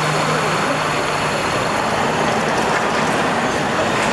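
Articulated street tram rolling past on city street track round a curve, a steady noise of wheels on rail with street traffic behind it.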